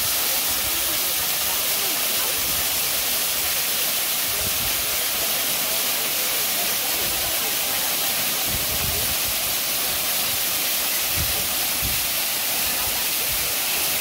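Waterfall cascading over rock ledges close by: a steady, loud hiss of falling water and spray.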